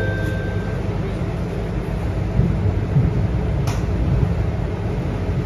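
Scania K230UB bus's five-cylinder diesel engine idling, heard from inside the cabin at the front as a steady low rumble. A held tone stops within the first second, and a single sharp click comes about three and a half seconds in.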